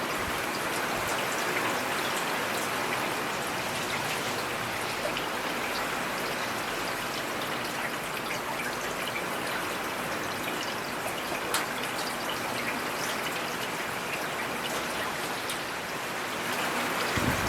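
Steady rain falling, an even hiss with scattered drop ticks and one more distinct drop about eleven seconds in.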